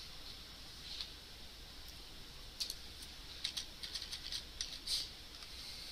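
Faint computer keyboard typing: scattered keystrokes, one near the first second and a quick run of them in the second half.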